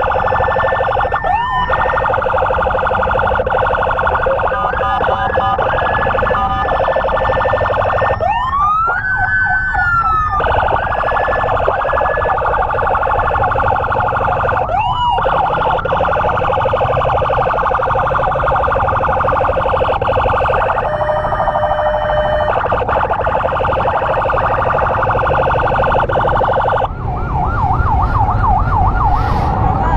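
Electronic emergency sirens sounding continuously in a fast yelp, switching patterns several times: rising whoops about a second and a half, nine and fifteen seconds in, a steady two-tone blast around twenty-one seconds, and a fast warble from about twenty-seven seconds. Underneath runs the low rumble of a motorbike engine and traffic.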